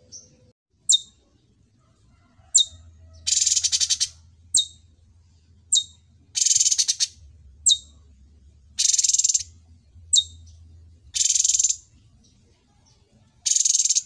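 Caged cucak cungkok singing a repeated phrase of short, sharp high whistled notes alternating with harsh rasping rattles, about five rattles of half a second to a second each.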